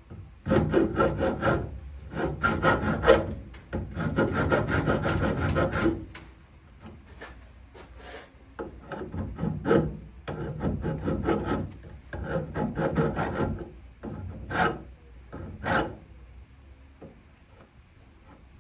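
Rasping, rubbing strokes of abrasive hand work on a classic car, in bursts of a few seconds with pauses between them. Two short single strokes come near the end of the bursts.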